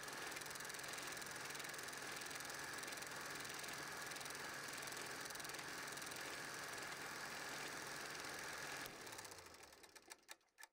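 8mm film projector running with a steady mechanical whir and fast clatter. About nine seconds in it is switched off and winds down, its hum falling in pitch, with a few fading ticks at the very end.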